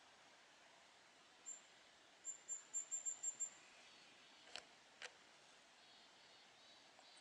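Very high, thin kinglet call notes: a single note, then a quick run of about eight notes that grow louder. About a second later come two short sharp clicks, half a second apart.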